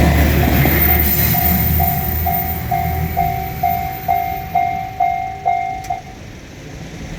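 Japanese level-crossing alarm bell ringing its 'kan-kan' at about two strokes a second over the fading rumble of a departing diesel railcar. The bell stops about six seconds in, the sign that the train has cleared the crossing.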